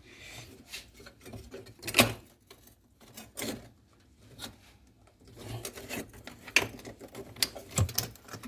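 Irregular clicks, taps and scraping as tools and refrigerator pipework are handled, with a sharp knock about two seconds in and denser rattling near the end.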